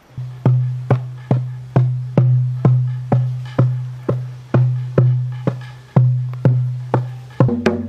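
A drum beaten in a slow, steady pulse of about two strokes a second, each stroke leaving a low ringing tone. Near the end a second, busier layer of percussion joins in.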